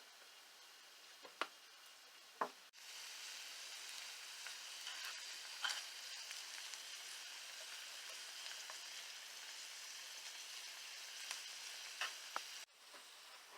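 Food sizzling in a frying pan, a steady hiss that starts abruptly about three seconds in and stops abruptly near the end. A few light clicks and knocks come just before it and now and then during it.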